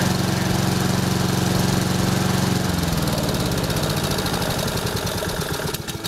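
Honda HRX476C2 lawnmower engine running steadily, then about three seconds in its speed drops as the mower goes into tall grass, a drop that can mean the engine is being overloaded by cutting too much grass. The engine sound cuts off just before the end.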